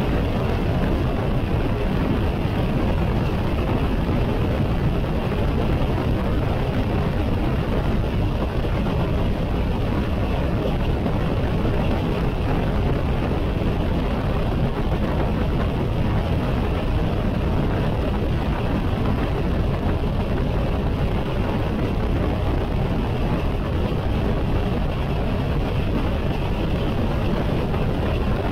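BMW K1600 GT motorcycle cruising at steady highway speed, around 85 mph on cruise control: a constant rush of wind and road noise over the smooth inline-six engine, with no change in speed or revs.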